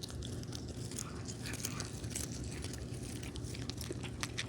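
A cat chewing something crunchy: a quick, irregular run of small crunches.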